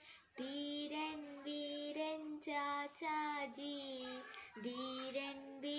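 A girl singing solo in Malayalam, holding long notes, after a short breath at the very start.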